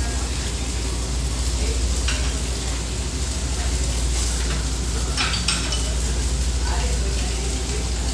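Food sizzling on a restaurant flat-top grill over a steady low hum, with a few clinks of plates and utensils as the cook works the line.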